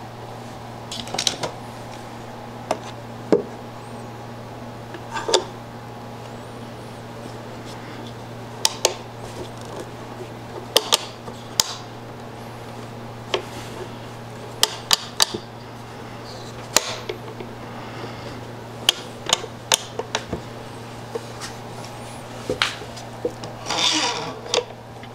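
Clamps being handled and set on a glued-up wooden panel: scattered clicks and knocks of clamp parts against wood, with a longer rubbing rattle near the end as a small clamp is worked onto a narrow caul. A steady low hum lies underneath.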